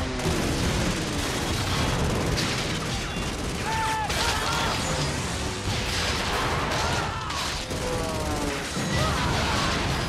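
A war-film battle soundtrack: rapid anti-aircraft gunfire and explosions, with men shouting and a music score underneath. A heavy blast comes near the end.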